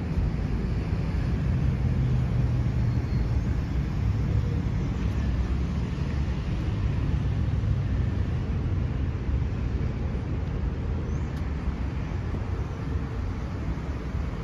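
Steady low vehicle rumble.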